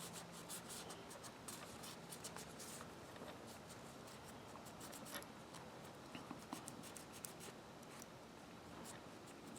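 Faint, scattered small clicks and light scraping from handling the disassembled parts of a 1/2-inch drive ratchet.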